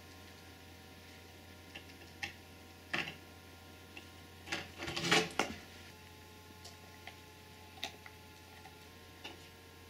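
Scattered soft clicks and taps as a cat and a Doberman eat and lick from a small dish on a glass-topped dresser, with a quick run of clicks about halfway through. A steady low hum lies underneath.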